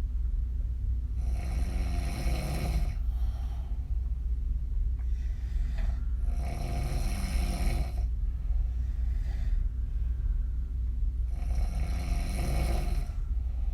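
A woman snoring on her back with her mouth open: three long snores about five seconds apart, each lasting a second and a half or more, with fainter breaths between, over a steady low hum.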